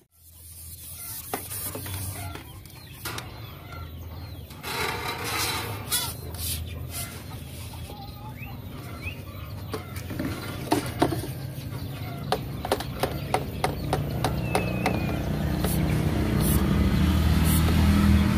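PVC electrical conduit and a pipe-bending tool being handled and worked, giving scattered knocks and a quick run of short sharp clicks about ten seconds in.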